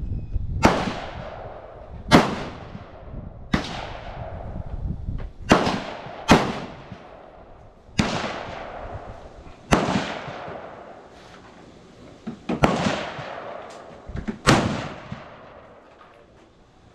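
Rifle gunshots at a shooting range: about nine sharp shots at uneven intervals, some louder than others, each trailing off in a long echo.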